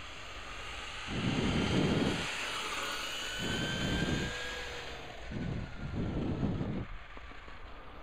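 HPI Savage Flux RC truck's brushless electric motor and drivetrain whining at high speed, the high whine shifting in pitch as the truck passes. Gusts of wind buffet the microphone.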